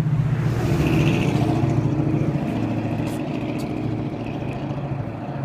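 Road traffic: a motor vehicle's engine and tyres passing close on the street alongside, loudest about a second in and slowly fading.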